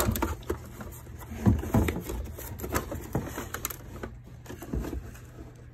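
Cardboard boxes being handled: a boxed toy truck is shifted and set into a larger cardboard carton, giving irregular knocks, scrapes and rustles.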